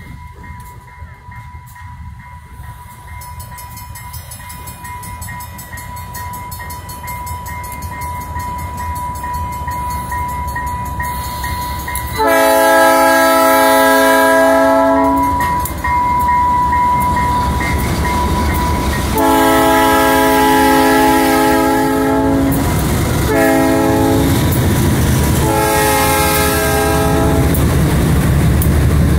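Two GE B23-7 diesel locomotives approach and pass close by, their engines rumbling louder as they near. About halfway through, the lead unit sounds its multi-chime air horn in the long, long, short, long pattern used at grade crossings.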